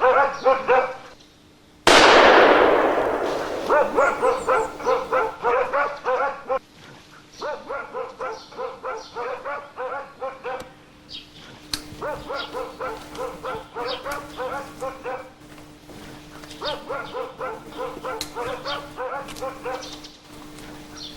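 Hunting dogs barking in rapid runs of barks, baying at a bear. About two seconds in a single gunshot cracks out and echoes away, the loudest sound, and the dogs keep barking after it.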